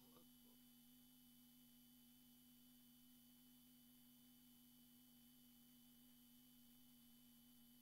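Near silence: a faint steady hum, room tone.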